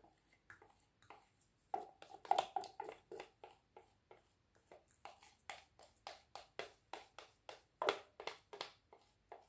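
Wooden stir stick knocking and scraping inside a plastic cup of acrylic paint as it is stirred: a fast, irregular run of short, faint clicks and taps, a few louder ones about two and a half and eight seconds in.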